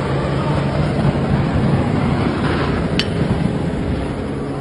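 Helicopter running: steady rotor and engine noise with a low hum, and one sharp click about three seconds in.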